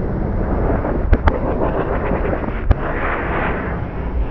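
Fireworks slowed to a quarter speed and played in reverse: a deep, continuous rumbling wash with two sharp cracks close together about a second in and another a little past the middle, then a brief hissing swell.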